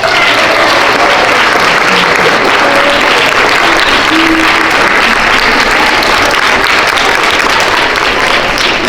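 A crowd of schoolchildren applauding loudly, starting abruptly as an award winner's name is read out and holding steady, thinning to scattered claps at the end.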